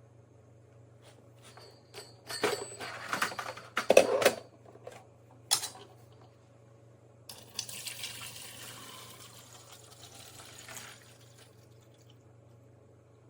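Knocks and clatter of hard parts being handled, loudest about four seconds in, followed by a steady rushing hiss of liquid that lasts about four seconds and then stops.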